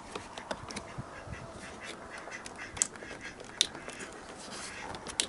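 Plastic door trim panel of a 2006 Ford Ranger being pulled away from the door: scattered clicks and rubbing from the panel and its pop clips, with two sharper snaps about three and three and a half seconds in.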